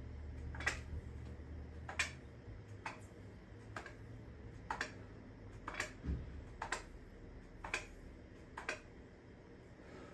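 Light, sharp clicks or taps about once a second, slightly uneven, from push-up reps on the gym floor.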